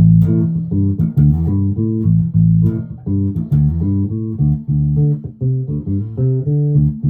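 1996 Alembic Epic four-string electric bass played fingerstyle through its active electronics, a busy line of plucked notes with both pickups centered and the volume fully up.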